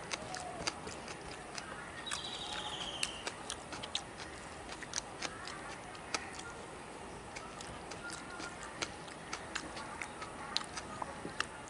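Eating by hand: wet, irregular smacking clicks of chewing rice and of fingers mixing rice on a banana leaf, one or two a second.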